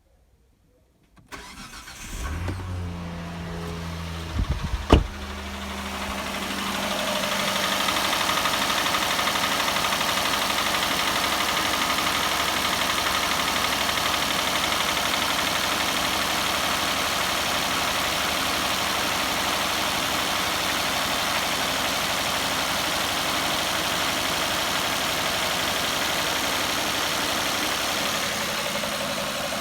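Hyundai/Kia G6EA 2.7-litre V6 engine starting and then idling steadily, with the knock in the engine that the owner is showing. A sharp knock sounds about five seconds in, as the engine catches.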